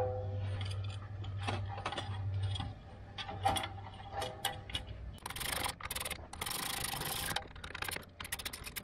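A metal exhaust tip with its mesh spark-arrestor screen is handled and slid into a muffler outlet: scattered clinks, a scraping rub of metal on metal, and a quick run of ticks near the end as its screws are turned.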